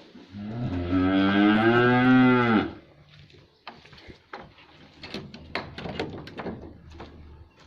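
A dairy cow mooing once, one long call of about two and a half seconds that rises slightly and then falls. It is followed by a few seconds of scattered faint clicks and knocks.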